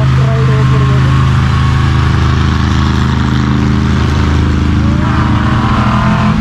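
Large truck engine running steadily at idle, a deep, even drone.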